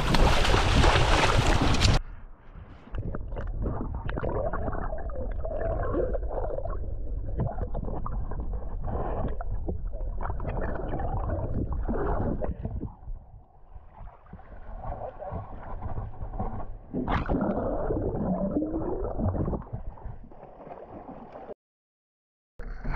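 A hooked Chinook salmon thrashing and splashing at the water's surface, loud for about two seconds, then the sound turns suddenly muffled: gurgling, rushing water and bubbles heard from underwater.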